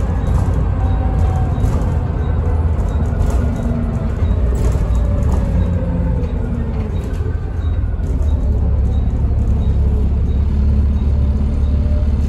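Volvo B7TL bus driving along, heard from the lower deck: a steady low engine rumble with a ZF automatic gearbox whine that falls in pitch through the middle. The engine grows louder about two-thirds of the way in.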